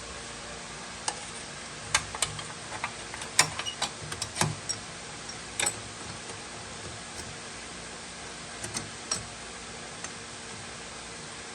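Irregular small clicks and taps of hand work on a car's trunk lock and its metal parts, clustered in the first half and thinning out later, over a steady hiss.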